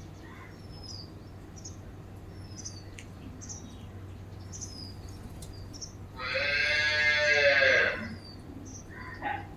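Small birds chirping: short, high, quick chirps repeating throughout. About six seconds in, one loud, long animal call lasts nearly two seconds and is the loudest thing heard.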